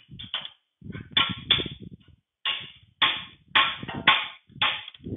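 Hammer blows on a steel rod held against the end of a 1953 Allis-Chalmers B's final drive axle shaft: about ten sharp metal strikes, several in quick pairs, driving the shaft out through its bearing and seal.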